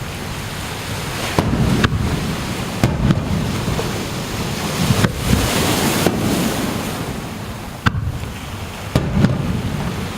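Fireworks bursting in a string of sharp, irregularly spaced bangs, about eight of them, over a steady wash of surf.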